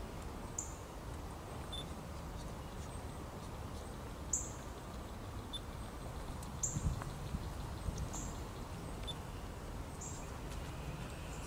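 Short, high bird chirps repeating every second or two over a steady low rumble.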